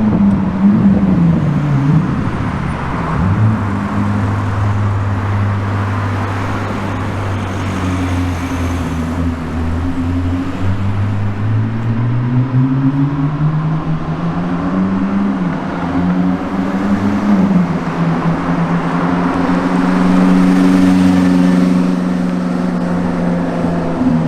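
A car engine running under light load. Its pitch drops in the first two seconds, holds low and steady, then climbs slowly and settles at a higher steady pitch for the last several seconds.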